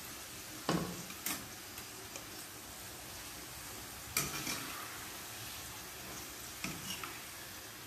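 Potato fries sizzling in hot oil in a steel wok at the end of their second fry, as a wire spider strainer lifts them out. The strainer clinks against the pan four times.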